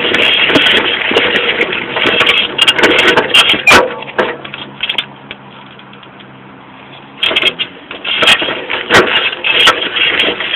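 Clatter and rattling of a saltafoss bicycle ridden over rough ground, with its chain, frame and Paioli hydraulic rear shocks rattling as the wheel rolls. The noise drops away for about three seconds in the middle, then comes back.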